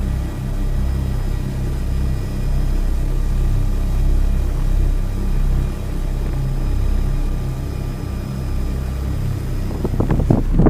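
Helicopter running: a steady low rumble with faint thin whining tones above it. Near the end it gives way to irregular knocks and gusty noise.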